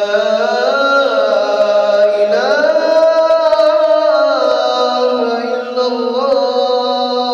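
A man's voice chanting the azan, the Islamic call to prayer, in long held notes with slow, ornamented rises and falls in pitch. The pitch climbs a little after two seconds in and settles lower near the middle.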